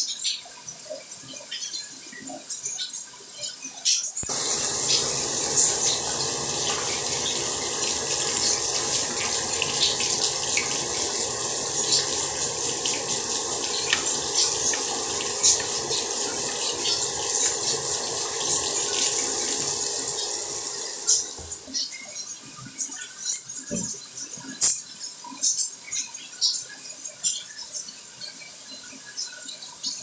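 Running water that comes on suddenly about four seconds in as a steady hiss, then tapers off after about seventeen seconds. Before and after it, light scattered drips and ticks of water.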